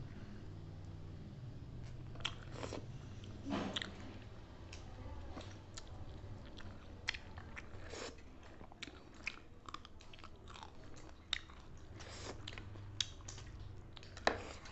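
Close-up eating sounds: chewing with irregular crunches and short mouth clicks, over a low steady hum.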